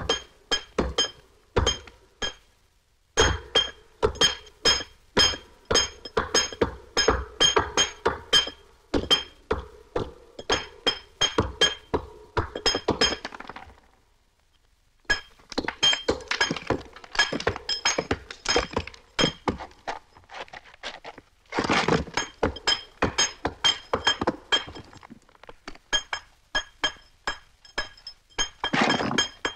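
Mallet and chisel striking stone in quick, regular blows, each with a bright metallic clink, with a short pause about halfway through.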